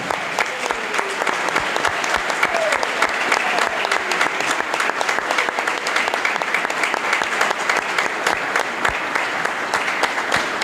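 Congregation applauding: dense, steady clapping from many hands that keeps up without a break, with a few faint voices under it.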